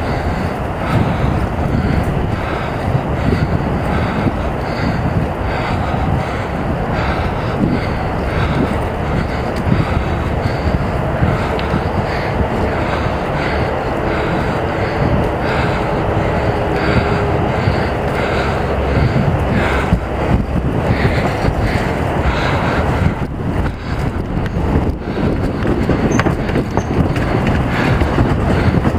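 Riding a mountain bike on a paved trail, heard from a helmet-mounted camera: a steady rush of wind over the microphone with tyre rumble and light rattling from the bike.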